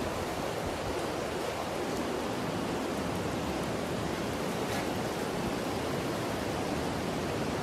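Swollen, muddy floodwater of a river in spate rushing past: a steady, unbroken noise of fast-moving water.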